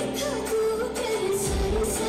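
Indian pop song with a singing voice over a steady beat, with a deep bass thump about three quarters of the way through.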